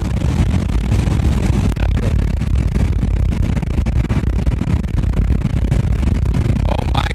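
Steady rumble of road, wind and engine noise inside a car's cabin while driving on a highway, loudest in the low end.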